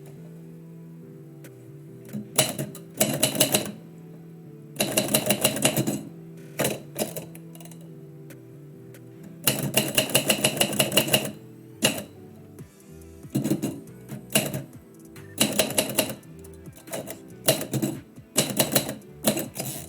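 Typewriter keys struck in quick runs of a second or two with short pauses between, the sound of lines being typed out. Steady background music plays underneath.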